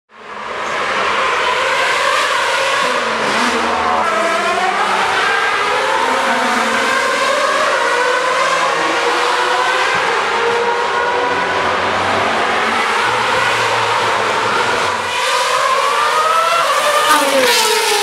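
2013 Formula 1 cars' 2.4-litre naturally aspirated V8 engines at high revs, several heard at once around the circuit, their pitches rising and falling as they accelerate and lift. The sound fades in at the start. Near the end one engine's pitch climbs and then drops sharply.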